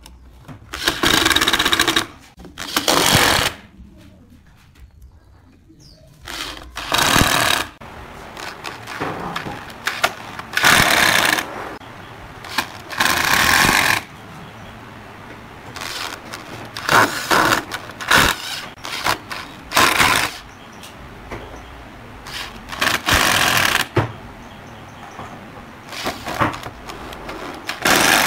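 Power drill driving screws through a steel hinge into pallet wood, running in repeated short bursts of about a second with pauses between, about a dozen times.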